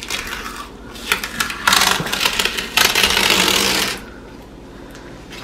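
Painter's tape crinkling as it is handled, then peeled off in two pulls: a short one, then a steady ripping noise about a second long.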